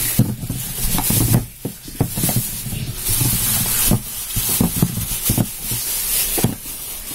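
Clear plastic bag rustling and crinkling as hands handle it close to the microphone, with scattered short handling knocks.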